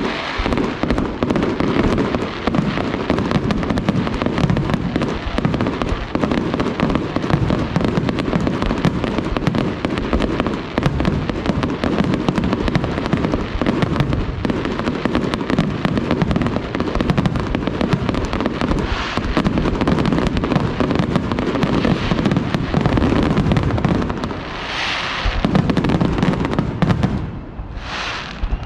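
Fireworks display: a dense, continuous barrage of bangs and crackling, with two brighter bursts of crackle near the end.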